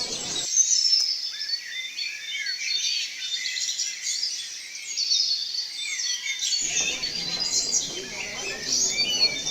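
Many small birds chirping and twittering, a birdsong ambience sound effect. The low background noise under the chirps drops out about half a second in and comes back near seven seconds.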